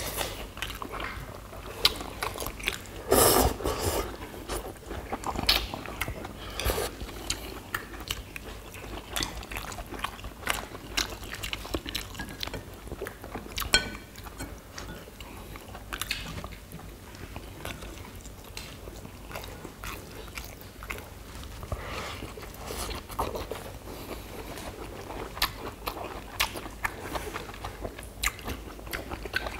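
Several people eating: chewing and crunching raw greens and kimchi, with chopsticks clicking against ceramic bowls and plates, and one louder noise about three seconds in.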